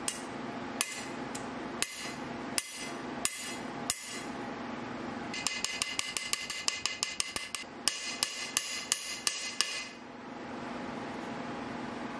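Carbide-tipped straightening hammer striking a hardened, warped steel knife blade on an anvil to peen it straight. It gives six separate blows about one every 0.7 s, then a quicker run of lighter ringing taps that stops about ten seconds in.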